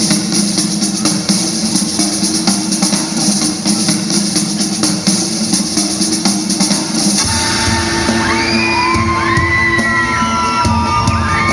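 Dance music track: a held low chord under fast hi-hat-like percussion, then about seven seconds in a kick drum and bass enter with a high gliding melody line above.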